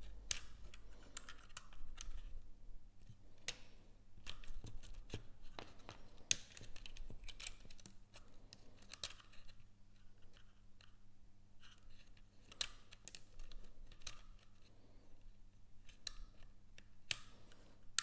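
Light, irregular plastic clicks and rustling of a dishwasher's plastic door-opening module being handled while its wire is looped around the module and threaded into place, over a faint steady low hum.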